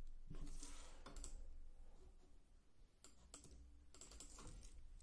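Faint computer keyboard keystrokes in three short clusters of taps, with pauses between them: text being deleted and retyped in a form field.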